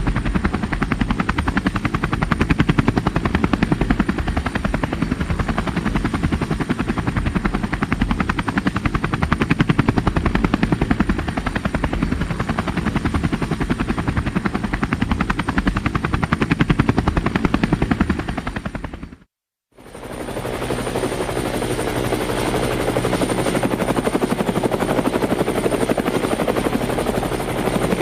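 Helicopter rotor beating in a fast, steady chop with a thin high whine over it. About nineteen seconds in it cuts off to silence for half a second, then picks up again with less low thump and more steady midrange tone.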